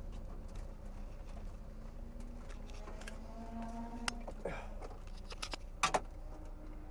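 Honda K20 inline-four in a Lotus Elise running gently at low speed, heard from inside the cabin as a steady low hum and rumble. Sharp clicks from the seat harness and cockpit sound over it, one about four seconds in and a louder double click near six seconds.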